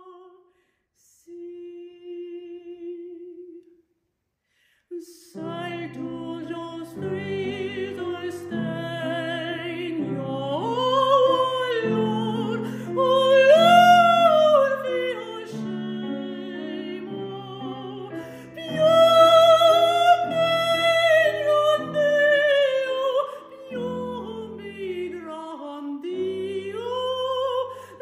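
Mezzo-soprano singing an operatic aria with wide vibrato over piano accompaniment. After a soft held note and a short pause, piano chords and voice enter together about five seconds in. The line climbs to a loud high note around the middle and later falls in a long descending phrase.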